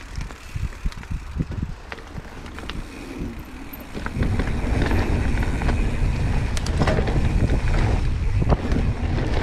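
Mountain bike riding down a dirt trail: tyres rolling, the bike rattling and clicking over the ground, with wind noise on the camera's microphone. It gets clearly louder about four seconds in.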